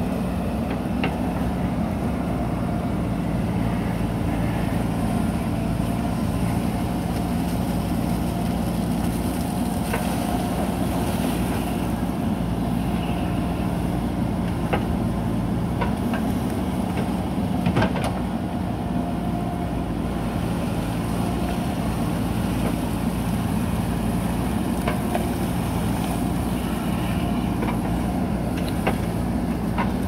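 JCB 3DX backhoe loader's diesel engine running steadily under working load while the backhoe digs, with occasional short metallic clanks from the arm and bucket, the loudest about eighteen seconds in.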